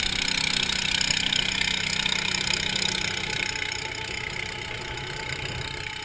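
Small motorboat's engine running steadily as the boat moves over choppy water, its hum under a rushing hiss of water and wind; the sound eases off a little about halfway through.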